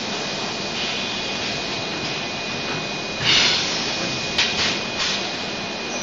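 DKW12T six-head extrusion blow molding machine running: a steady mechanical whir with a thin high whine. There is a loud hiss about three seconds in, then a click and a few shorter hisses as the machine cycles.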